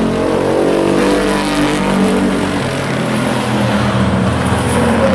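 Several pickup race-truck engines running hard together as the pack laps the track, their overlapping engine notes sliding up and down in pitch.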